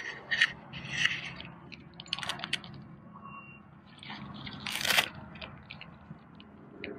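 Crunching and rustling handling noises as someone moves up to a tent and handles its fabric, with one louder, short rasp about five seconds in.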